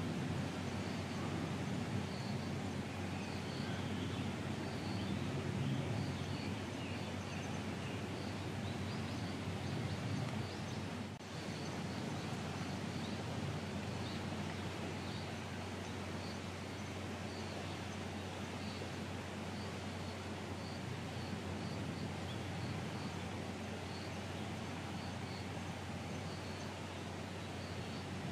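Steady outdoor background noise with a low hum, with faint high chirps repeating through it.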